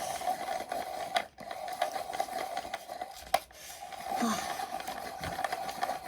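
Electric pencil sharpener's small motor whirring steadily as it sharpens a pencil. The motor cuts out briefly about a second in and again just past three seconds, with a sharp click at each stop.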